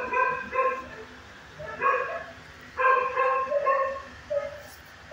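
A dog barking in short runs: a quick burst of barks at the start, a single bark about two seconds in, then another run of barks about three seconds in and one more near the end.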